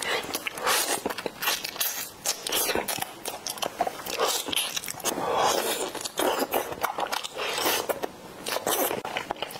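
Close-up eating sounds of raw marinated crab: shell cracking and crunching between the teeth, with wet sucking and chewing as the meat is drawn out of the shell, many short clicks and smacks throughout.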